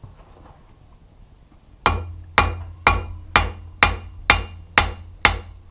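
Rounding hammer striking red-hot tong stock on a steel anvil, thinning it out: a steady run of blows, about two a second, each with a short metallic ring, starting about two seconds in.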